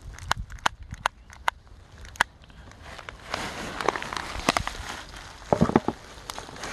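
A few sharp clicks and taps of handling, then plastic rubbish rustling and crinkling underfoot as someone moves through it, with a louder knock about five and a half seconds in.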